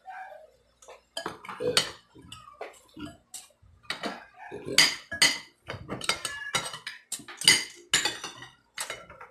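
Metal spoons and forks clinking and scraping against ceramic plates as people eat, in irregular sharp clinks.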